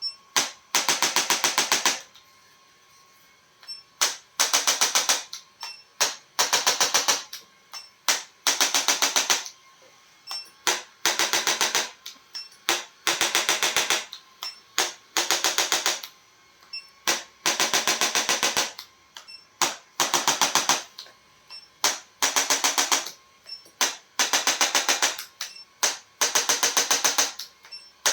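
Rapid mechanical clicking in bursts of about half a second to two seconds, stopping and starting over and over with short pauses between.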